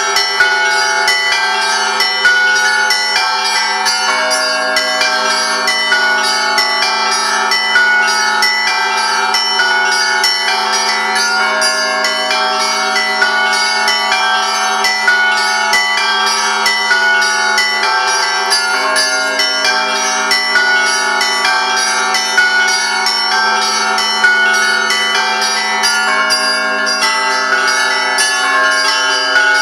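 Russian Orthodox church bells ringing a continuous peal: many bells of different pitches struck in quick succession, their tones overlapping and ringing on.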